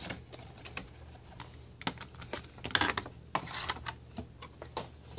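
Scattered light clicks and short rustles of a cardboard box and its clear plastic insert being handled as a vinyl Funko Pop figure is taken out of its packaging.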